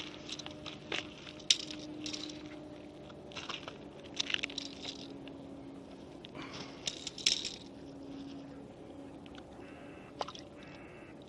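Irregular crunching and rustling handling noises, a dozen or so short scrapes and clicks at uneven intervals, over a faint steady hum.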